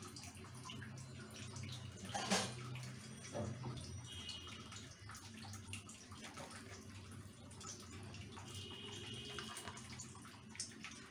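Soft handling sounds of hands pressing and folding rice-flour dough in a bowl, under a steady low hum and faint hiss, with a brief knock about two seconds in.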